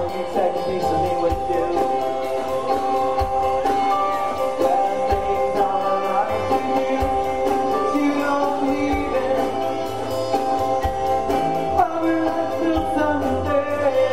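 Rock band playing live: guitars and bass under a man singing, with a quick steady tick of cymbals.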